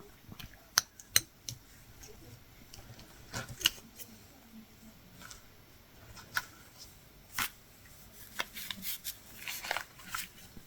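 Latch hook tool working short pieces of yarn into the canvas: irregular soft clicks as the latch snaps shut, and brief rustles and scrapes as the yarn is pulled through the mesh.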